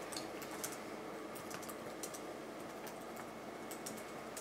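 Typing on a computer keyboard: a scattering of irregular key clicks.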